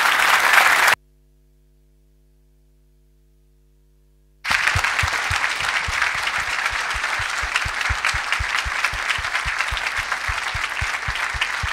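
Audience applauding, a dense patter of many hands clapping. About a second in the sound drops out to a faint steady hum for roughly three and a half seconds, then the applause comes back and carries on.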